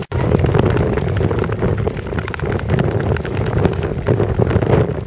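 Wind rushing over the microphone of a moving skater, mixed with the scrape and hiss of long-distance skate blades gliding over clear black ice.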